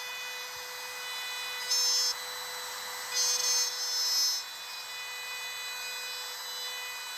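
DeWalt cordless compact router with a 1/4-inch spiral up-cut bit running with a steady high whine, routing out a stop dado in red oak. Three short louder bursts come through, one about two seconds in and two between three and four and a half seconds.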